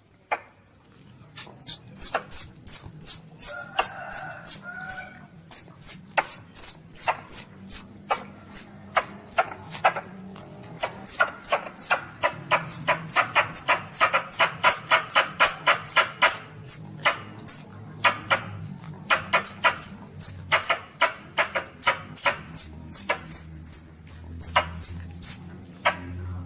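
Baby Asian palm civet (luwak) squealing: a rapid run of short, high-pitched falling squeaks, several a second, starting about a second in.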